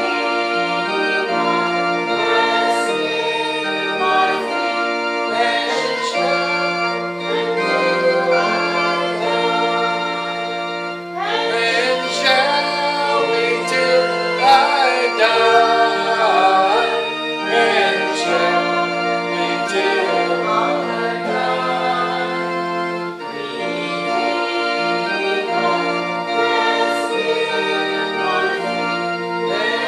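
Voices singing a hymn to organ accompaniment, in slow, sustained chords.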